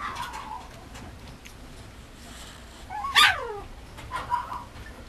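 Mame shiba puppy giving short, high whining yips, with one louder yelp about three seconds in that falls sharply in pitch.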